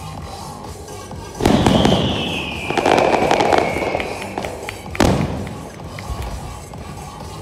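Fireworks bursting over show music: a loud bang about a second and a half in, followed by crackling and a long falling tone, then another sharp bang about five seconds in.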